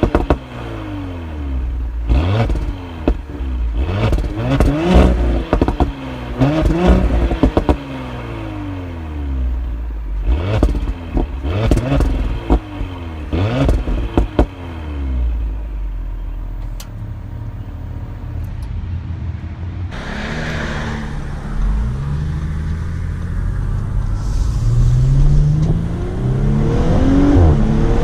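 Audi SQ5's turbocharged V6 exhaust revved in a string of quick blips, each falling back with sharp pops and crackles. It then settles to a steadier running note, and in the last few seconds it climbs in pitch again under throttle.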